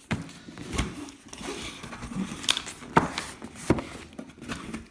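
A cardboard delivery box being cut open and handled by hand: irregular scraping, clicking and rustling of cardboard and packing, with a few sharper knocks.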